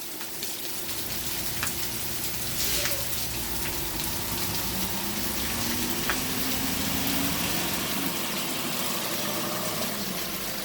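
Heavy rain pouring steadily, with a few sharp taps here and there.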